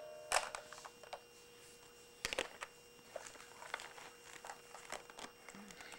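Mostly quiet room with a few scattered sharp clicks and light taps, the sharpest about two seconds in, over a faint steady hum.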